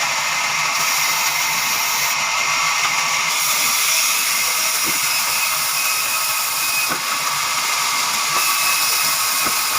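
Sawmill saw running through a log: a steady high hiss and whine, with a few faint knocks.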